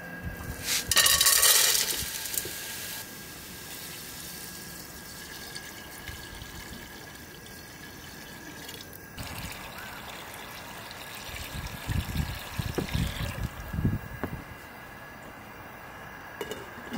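Soaked chickpeas and beans tipped from a metal colander into a pot, a brief loud clattering rush about a second in. Later, water is poured from a copper pitcher into the pot for several seconds, splashing onto the beans, with a light clink near the end as a glass lid is handled over the pot.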